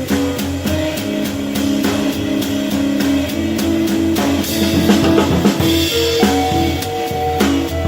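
Music: a drum kit with a steady beat of cymbal hits, playing along with guitar and bass.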